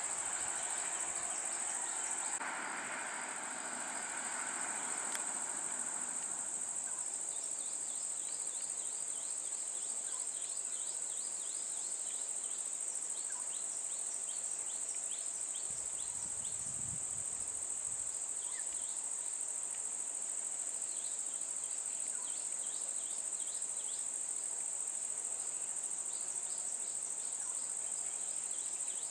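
Steady high-pitched drone of insects, with short repeated high chirps over it from several seconds in and a brief low rumble around the middle.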